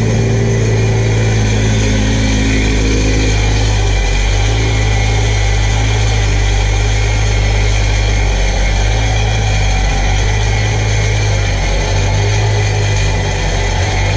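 Supercharged three-cylinder engine of a 2006 Sea-Doo RXT jet ski idling steadily out of the water on its trailer, fed cooling water by a garden hose.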